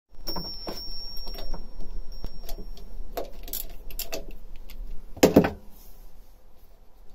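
Clicks, knocks and a loud clatter of hands handling a fuel filter and the parts around it in a boat's engine bay, the loudest clatter about five seconds in. A thin, steady high whine sounds through the first three seconds.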